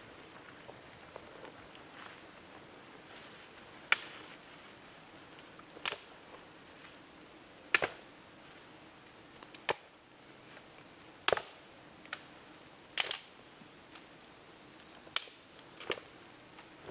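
Large raindrops starting to fall, heard as scattered sharp ticks hitting close to the microphone, irregular and about one every second or two, over a faint hiss.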